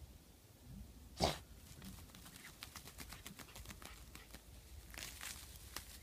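A small dog snorting sharply once into a mole trench about a second in, then crackling and crunching dry leaves and roots as she digs and bites at them, a run of quick little clicks.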